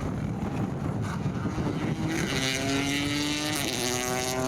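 Rally car engine running hard as the car passes. Its note comes in clearly about two seconds in and drops once at a gear change a little over three and a half seconds in.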